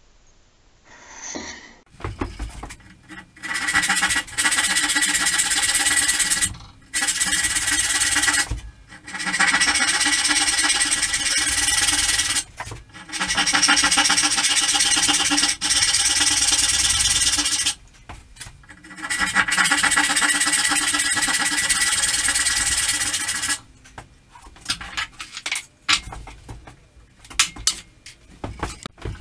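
Backsaw cutting through pine by hand: long runs of rapid, even rasping strokes broken by short pauses. A few light knocks and clicks near the end.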